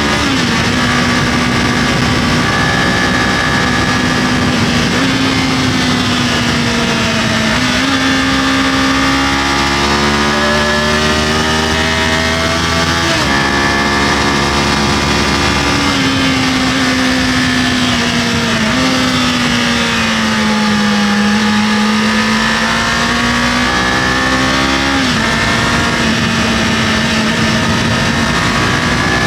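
Kawasaki KLE500 motorcycle's parallel-twin engine running under way, its note rising and falling with the throttle and stepping abruptly up or down several times as the rider shifts gears.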